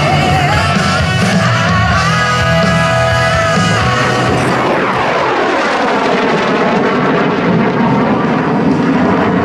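MiG-17 jet fighter's Klimov VK-1 afterburning turbojet, afterburner lit, making a fast pass; about halfway through its sound sweeps down in pitch as it goes by. Music plays along with it, clearest in the first half.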